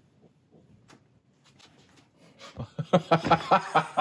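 Laughter: a quick, even run of short laughs that starts a little past halfway, after a quiet stretch with a few faint clicks.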